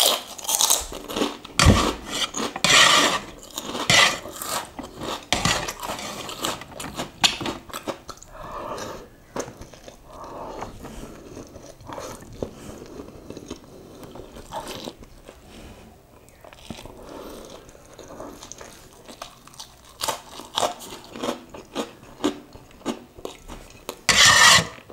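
Close-up eating sounds: crunchy bites of a crisp cracker and chewing of instant noodles. Sharp crunches come thickest in the first few seconds, and the loudest cluster comes near the end, with softer chewing in between.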